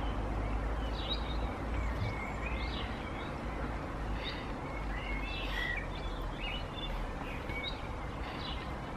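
Outdoor ambience: small birds chirping on and off over a steady low background rumble.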